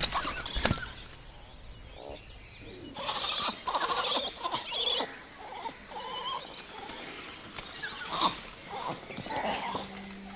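A troop of langur monkeys calling: a sharp click or two at the start, then a dense run of overlapping calls about three seconds in, and scattered calls again near the end.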